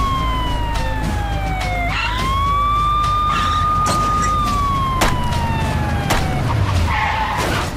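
Police car siren wailing: a high held tone slides down, sweeps back up about two seconds in, holds, then slides down again. A steady low rumble runs underneath.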